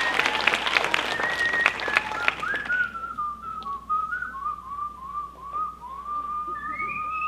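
Applause dies away over the first couple of seconds, then a person whistles a tune: one clear note gliding up and down in short phrases, stepping up higher near the end.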